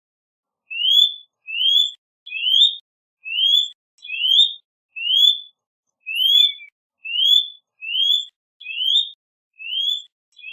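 A bird repeating a short, clear rising whistle about a dozen times, roughly one note every second, each note sliding upward.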